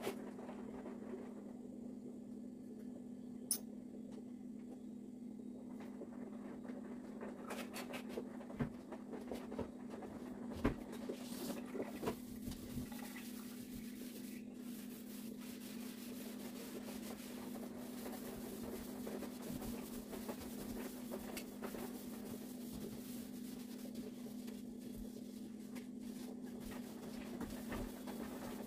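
Quiet handling sounds, rubbing and scratching with a few sharp clicks, over a steady low hum.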